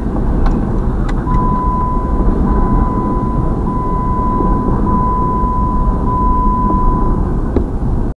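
Double-stack intermodal freight train passing close by, a steady heavy rumble of its wheels on the rails. A steady high tone rings over the rumble from about a second in until near the end, with a few sharp clicks.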